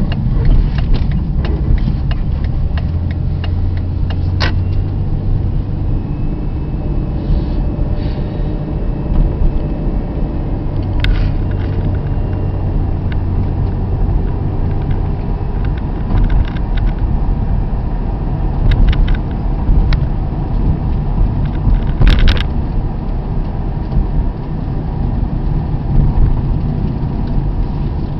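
A road vehicle on the move: a steady low rumble of engine and road noise, with scattered short clicks and rattles.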